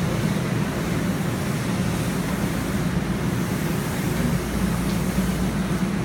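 Steady rumble and hiss of a subway station platform, with a TTC subway train standing at it with its doors open.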